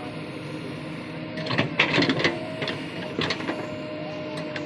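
JCB 3DX backhoe loader working: a steady mechanical whine with two bursts of clanking and clicking, one about a third of the way in and one shorter one past halfway.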